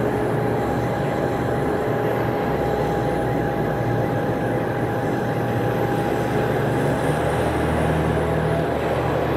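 A steady mechanical rumble with a constant whine on top and low droning tones that shift a little partway through, like heavy engines running without a break.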